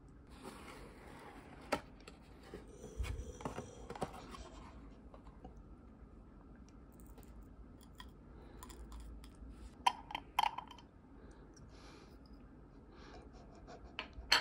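Hands handling a small glass jar with a metal screw lid and its cardboard gift box with wood-wool packing: rustling of the packaging and a few light clicks and taps, the sharpest about ten seconds in.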